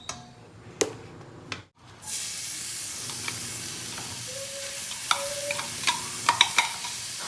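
Shrimp sautéing in hot oil with garlic and onion: a steady sizzle that starts about two seconds in. A cooking utensil clinks and scrapes against the pan as the shrimp is stirred.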